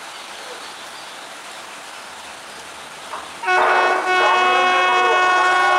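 Horn of an approaching Indian Railways electric locomotive: after a quiet stretch, a loud, steady horn blast begins about three and a half seconds in, breaks off briefly near four seconds, then is held.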